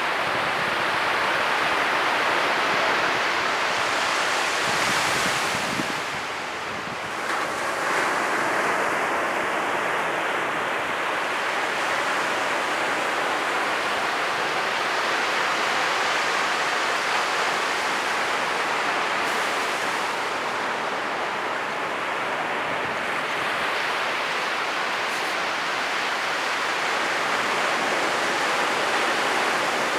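Ocean surf: waves breaking and washing up the beach in a steady wash of noise. The noise eases briefly about six seconds in, then swells again as another wave breaks about eight seconds in.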